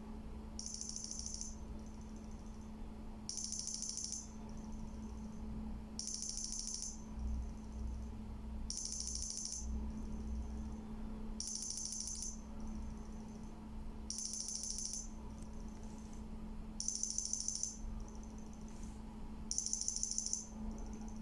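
A Sony Ericsson T300 ringtone played on a Nokia 202 through an external speaker: a short, high-pitched trilled beep repeating about every two and a quarter seconds, nine times, over a steady low hum.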